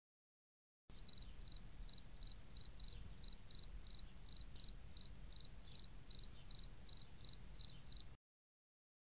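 A short high-pitched chirp repeating evenly about three times a second over a faint low hiss, starting about a second in and cutting off abruptly near the end.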